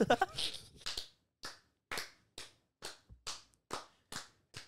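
Two men laughing briefly, then clapping their hands together in a steady rhythm, a little over two claps a second.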